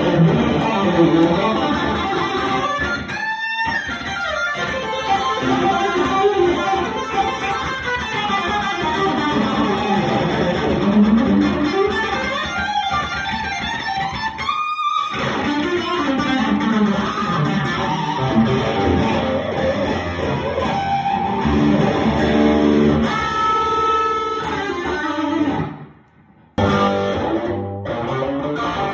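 Epiphone Flying V electric guitar played through a Matchless tube amp on its rhythm tone: continuous amplified chord and riff playing, with a few brief breaks and a half-second stop near the end before the playing resumes.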